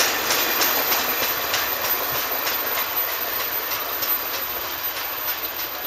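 Heritage passenger train's railcars passing at speed, wheels clicking over the rail joints over a steady rushing rumble. The clicks thin out and the sound grows fainter as the end of the train passes and moves away.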